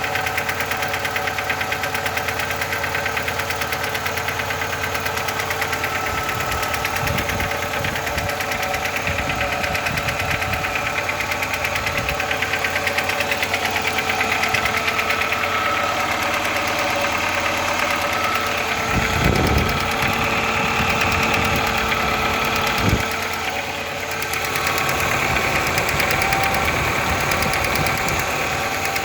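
Volkswagen Passat B2 engine running with a rapid, steady knock of unknown cause, which is the noise the owner is asking about. A couple of dull low thumps come about two-thirds of the way through.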